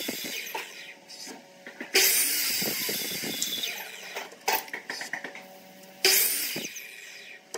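Sliding compound miter saw cutting small pieces of wood twice: each cut comes in suddenly and then fades over a couple of seconds as the blade winds down. Between the cuts there are a few light knocks of wood being set against the fence.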